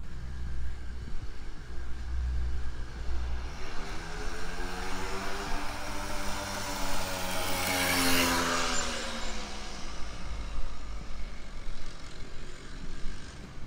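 A road vehicle drives past close by: its engine note climbs as it approaches and drops after it passes, with tyre noise loudest as it goes by about eight seconds in.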